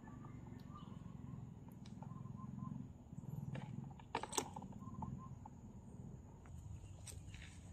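A low, rough drone throughout, with a quick cluster of sharp knocks and scrapes on the plastic tub a little past halfway as a hand reaches in among the frogs.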